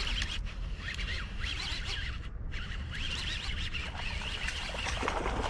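Birds chirping outdoors, many short overlapping calls, over a steady low rumble, with a brief noisy burst near the end.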